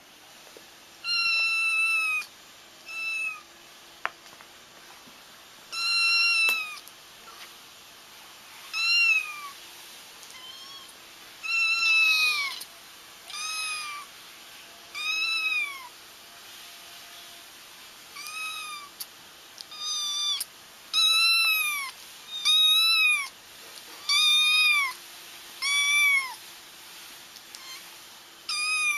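Young kittens crying: high-pitched mews one after another every second or two, each call arching up and then down in pitch. These are the calls kittens make for their mother, used here to draw a feral mother cat to a trap.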